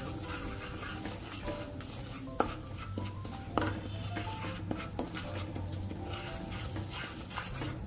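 Wooden spatula stirring and scraping a spice powder mix in oil around a non-stick kadhai, with a few sharp knocks of the spatula against the pan, the loudest about two and a half seconds in.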